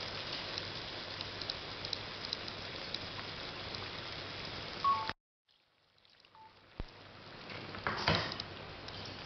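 Faint sizzling and crackling from a pot of goat head meat with freshly poured masala cooking on a gas stove, cutting out suddenly about five seconds in. When the sound returns there is a single clink and a short louder rush near the end.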